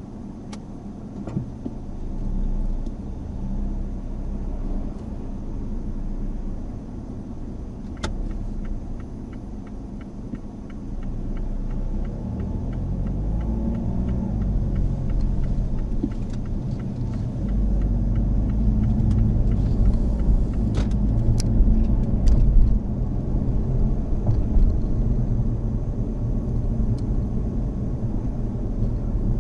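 Mazda Axela Sport driving: a steady low rumble of engine and road noise. It grows louder as the car speeds up from about halfway through, with the engine note rising and falling for a few seconds, and a few short clicks and knocks.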